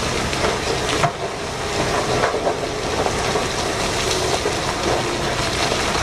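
Rock and coal sliding and pouring out of the tipped bed of a giant mining dump truck as it unloads: a steady rushing rumble with a few sharp clacks of stones, the truck's machinery running underneath.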